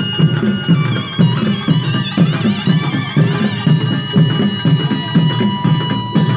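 Korean pungmul band playing: barrel drums (buk) beat a fast, steady rhythm. Over the drums, a shrill, wavering wind melody plays during the first half, typical of the taepyeongso shawm.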